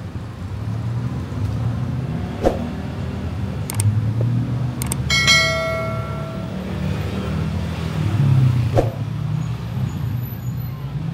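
Street traffic with cars running past in a steady low rumble, broken by a few sharp knocks. About five seconds in, a single metallic bell-like ring sounds and dies away over a second or so.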